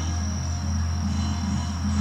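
Background music of low, sustained notes over a steady drone, with a thin, steady high-pitched tone above it.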